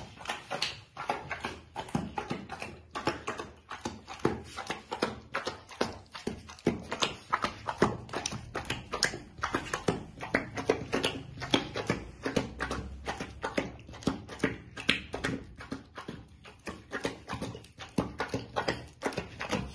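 Rottweiler puppy eating a wet mix of rice and vegetables from a steel bowl: quick, continuous smacking and chomping mouthfuls, several a second.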